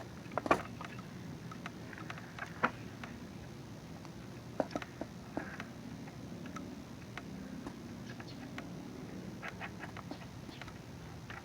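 Scattered light clicks and knocks of small metal parts and tools being handled while an ATV starter motor is put back together, at irregular intervals over a faint steady hum.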